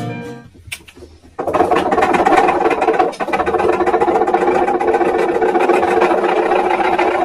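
A steady mechanical buzz, like a small motor, starting about a second and a half in and holding even to the end.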